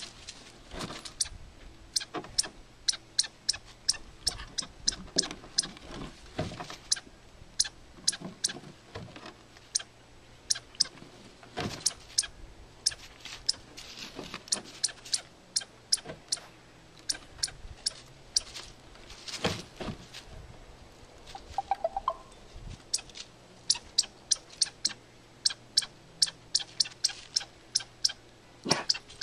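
Small dog gnawing and scratching at the edge of a weathered wooden boardwalk plank to get at a chipmunk underneath: irregular sharp clicks of teeth and claws on wood, several a second.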